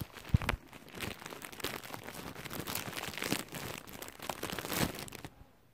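Plastic bag being opened and handled, crinkling and rustling with a sharp click at first, until it stops suddenly near the end.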